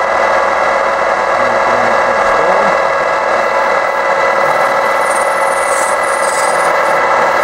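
Metal lathe running at speed with its chuck spinning: a loud, steady mechanical whine made of several fixed tones over a rushing noise.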